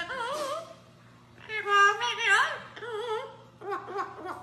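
Warbling vocal sounds in three short phrases, the pitch wavering rapidly up and down like mock-operatic singing or yodeling.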